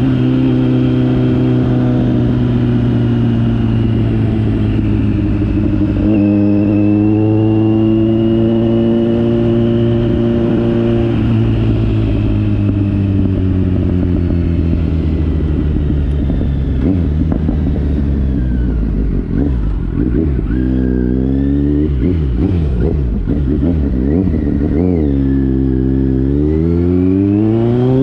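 2021 Kawasaki Z900's inline-four engine running through an aftermarket Akrapovič-replica exhaust. Its pitch holds fairly steady at first, then falls slowly for several seconds, then rises and drops in quick sweeps near the end as the engine is revved and eased off.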